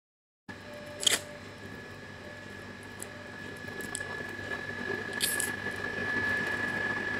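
A person slurping and chewing a mouthful of plain boiled instant noodles, with a few sharp wet mouth clicks, the loudest about a second in, over a steady faint hum. The sound begins after a moment of dead silence.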